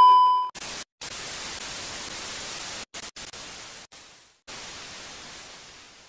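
Television test-card sound effect: a loud, steady test-tone beep that cuts off about half a second in, then a hiss of TV static that drops out briefly several times and fades away near the end.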